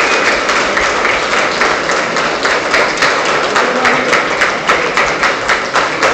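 Crowd applauding, the claps thinning out into more distinct single claps in the second half.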